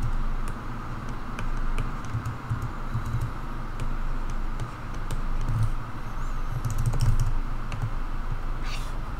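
Computer keyboard keys clicked one at a time, in scattered irregular clicks, over a steady low hum of background noise.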